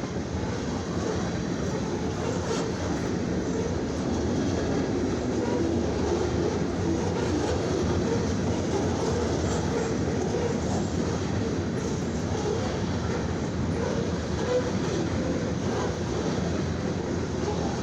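A long loaded freight train of grain hoppers and mixed freight cars rolling past at about 34 mph: steady rumble of steel wheels on rail, with rattling and clickety-clack from the cars.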